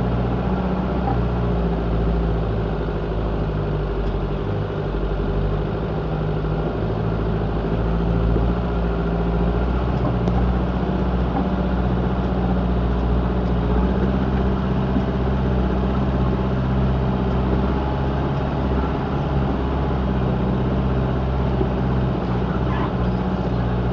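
Off-road vehicle's engine running steadily at low revs, heard from inside its metal cab as it creeps along a rough track. The engine note holds even throughout, with only slight shifts in pitch.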